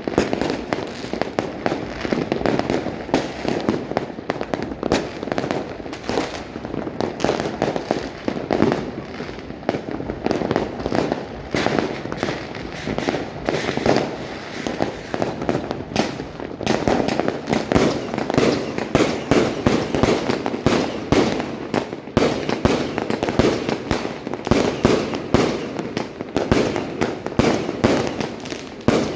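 Many fireworks and firecrackers going off at once, near and far: a dense, unbroken barrage of sharp bangs and pops over a continuous rumble of distant explosions.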